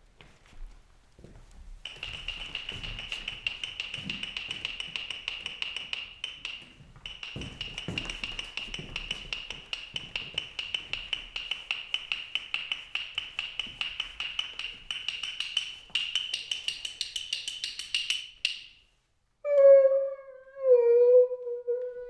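Rapid, even tapping on a percussion instrument, about five taps a second, with a steady high ring over it; it breaks off briefly about six seconds in and stops near the end. Then a loud pitched tone wavers and glides downward.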